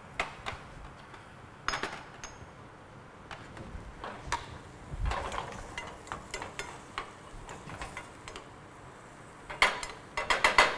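A spatula stirring and scraping chopped fennel in a small stainless steel saucepan, with scattered clinks and knocks of kitchen utensils and a quick run of clicks near the end.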